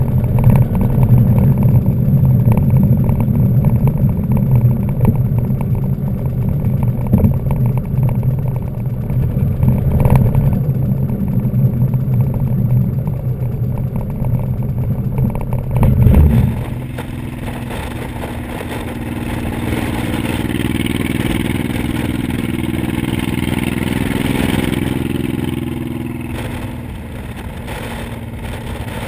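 Cruiser motorcycle engine running at riding speed, a steady low rumble, with wind rushing over the microphone. About two-thirds of the way through it cuts to another ride where the engine is softer and the wind rush louder.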